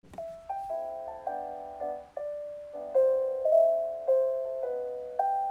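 Background music: soft solo piano playing slow chords and melody notes.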